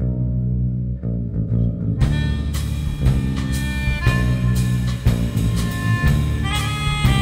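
Jazzy band music from the soundtrack. A plucked bass line plays for about two seconds, then a drum kit and more instruments come in, holding sustained notes over the beat.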